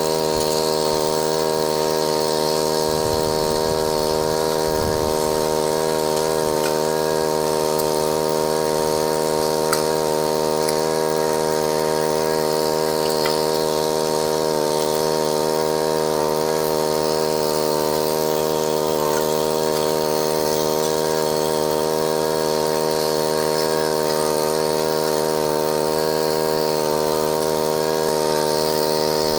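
The small motor of a water pump feeding a sluice box, running at a steady, unchanging speed, with a few faint clicks about ten seconds in.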